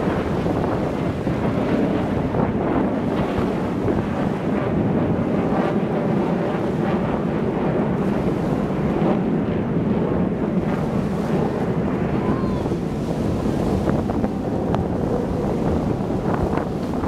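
Wind buffeting the microphone in a steady rushing roar, with waves washing in the background.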